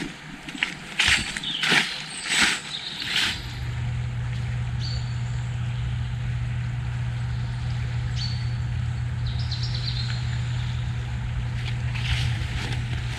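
Footsteps crunching for about three seconds, then a steady low hum of unknown source that carries on unbroken, with a few short high bird chirps over it.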